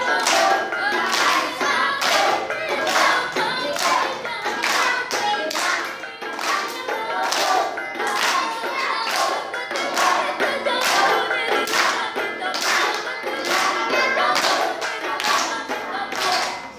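A group of children performing the Saman dance: hand claps in unison, about two a second, with the group singing in unison over them.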